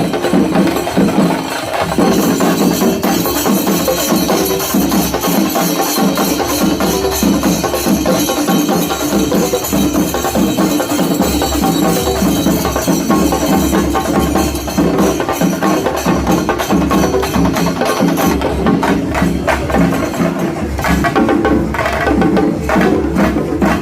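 Chenda melam: a Kerala ensemble of chenda drums played with sticks in fast, dense rhythm, with the jingle of ilathalam hand cymbals over it.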